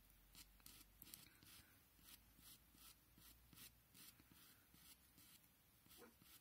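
Pencil flicking short hair strokes on paper: faint, quick scratches, about two to three a second.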